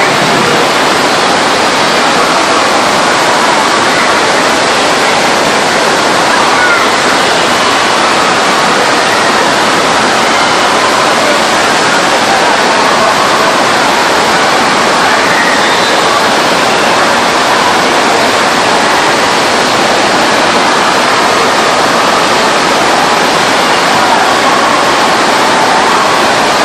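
Loud, steady rush of flowing water on a body-boarding wave ride, a continuous even roar with no breaks.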